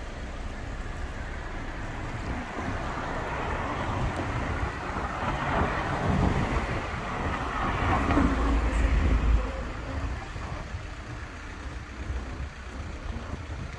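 A motor vehicle passing by: engine and tyre noise building over several seconds, loudest about eight to nine seconds in with a deep rumble, then fading away.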